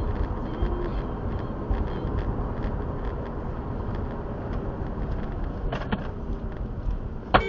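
Steady low road and engine rumble inside a moving car, recorded by a dashcam, with small ticks and rattles. Right at the end a sharp jolt is followed by a car horn that starts to sound.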